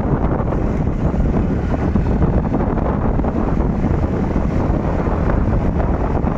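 Wind buffeting the microphone: a loud, steady rumbling noise.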